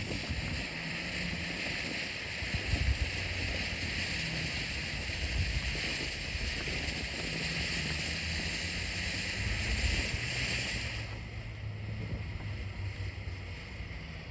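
Firework fountain spraying sparks with a steady, dense hiss, which stops suddenly about eleven seconds in.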